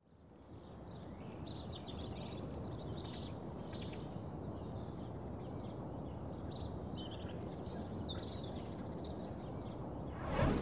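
Outdoor ambience fading in: a steady background hiss with small birds chirping and twittering throughout, then a short loud whoosh near the end.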